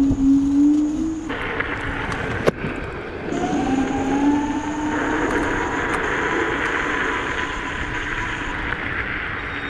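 Dualtron electric scooter's motor whining, the whine rising slowly in pitch from about three seconds in as the scooter picks up speed, over a steady rush of wind and tyre hiss on the wet road. A single sharp click about two and a half seconds in.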